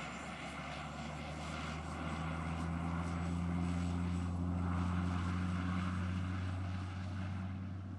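Single-engine light aircraft's propeller engine at full power on its takeoff roll, a steady engine note that grows louder to a peak about five seconds in, then eases slightly as the plane lifts off and moves away.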